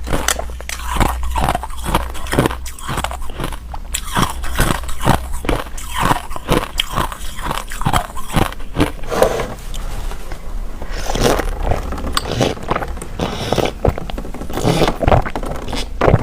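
Close-miked chewing of ice: a rapid run of sharp crunches, several a second, as the ice is bitten and ground between the teeth, with a short lull about ten seconds in before the crunching picks up again.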